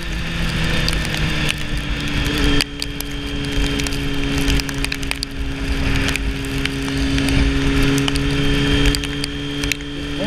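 Sports motorcycle engine running at a steady cruising speed, with wind rumble and scattered sharp ticks. The engine note drops slightly about two and a half seconds in.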